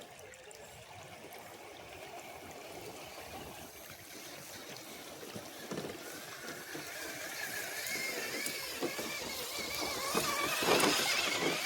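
RC rock crawler's electric motor and gears whining as it drives, with water gurgling. The whine wavers in pitch and grows louder over the second half.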